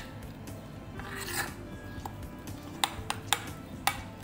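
Metal spoon stirring thick pakora batter in a ceramic bowl: wet scraping, then sharp clinks of the spoon against the bowl, three of them in the second half.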